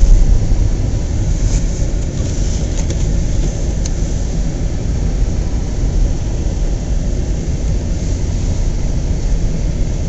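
Steady low rumble of a car's engine and tyres heard from inside the cabin while driving slowly on a snow-covered road.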